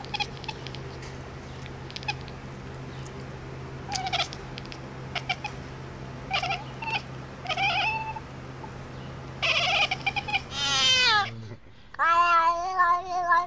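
Domestic cat vocalizing: a few short meows and chirps, then a long downward-sliding yowl and, near the end, a long wavering meow. A steady low hum runs underneath and stops shortly before the last call.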